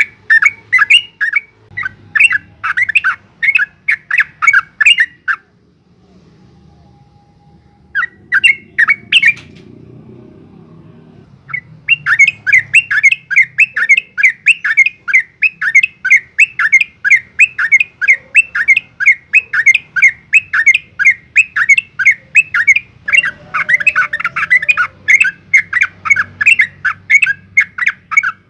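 Yellow-vented bulbul (trucukan) singing a long, rapid run of short repeated notes, several a second. It breaks off twice in the first dozen seconds, then runs unbroken to the end.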